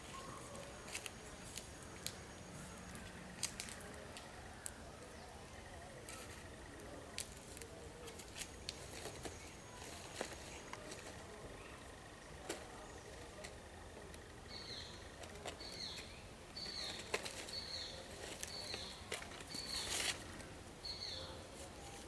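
Faint outdoor ambience of scattered sharp clicks and rustles in leafy undergrowth. About two-thirds of the way through, a small bird begins calling, repeating a short, high, falling note about once or twice a second.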